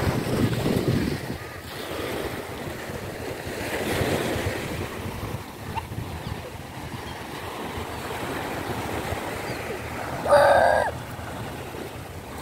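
Small waves washing onto a sandy shore, with wind buffeting the microphone; the noise swells twice in the first few seconds. About ten seconds in there is a brief high-pitched sound.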